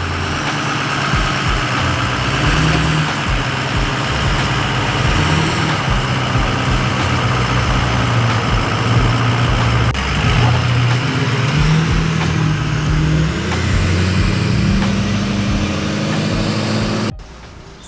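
A vehicle engine running loud, its pitch stepping up and down as it is revved, then cut off abruptly near the end.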